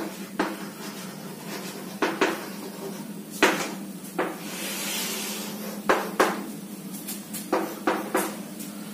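Chalk on a blackboard while writing and drawing: a dozen or so sharp taps as the chalk strikes the board, and a longer scrape about five seconds in as a line is drawn.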